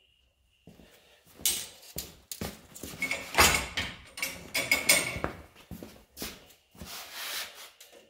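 Front suspension of a car being jacked up through its travel: a series of rough creaking, scraping strokes about once a second, loudest in the middle.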